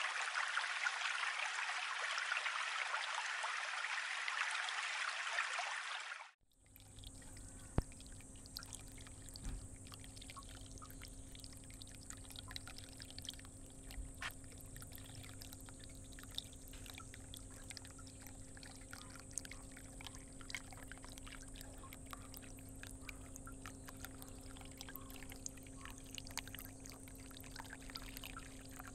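Water noise in a medaka biotope tub. A loud, even hiss of water heard through an underwater camera cuts off suddenly about six seconds in. After it comes a quieter trickle and pour of water into a planter tub, with small drips and a faint steady hum.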